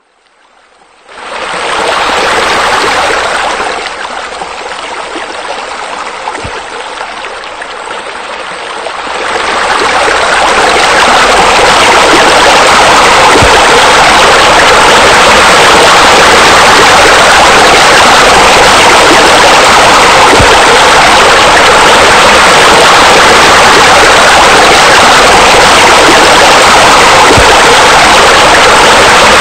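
Steady rushing water of a pool waterfall and spa spillover. It comes in about a second in, swells louder around nine to ten seconds in, then holds as a loud, constant rush.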